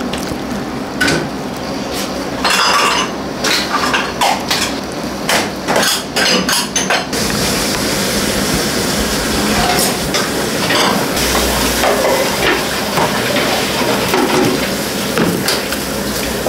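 Kitchen clatter of metal utensils on ceramic bowls and pots: a run of sharp knocks and clinks in the first half, then a steady hiss of kitchen noise with fewer, lighter clinks.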